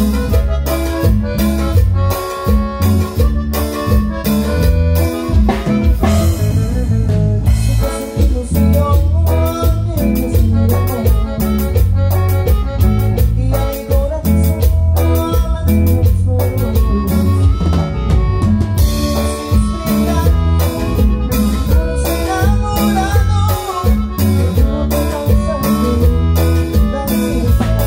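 Live band playing a dance song with drum kit, keyboard and guitar over a steady beat and a strong bass line.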